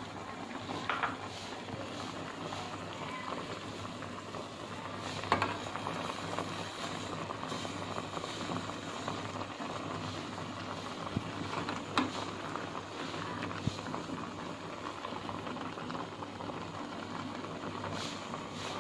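Noodle broth boiling hard in a thin gold aluminium Korean ramyeon pot on a gas burner, a steady bubbling. A few short light clinks of a metal spoon against the pot are heard as broth is spooned over the egg.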